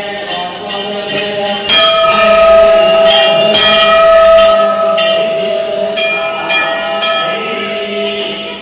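Large hanging brass temple bell rung by hand, its clapper struck against it over and over with a long ringing tone between strikes. The strikes get louder and closer together about two seconds in.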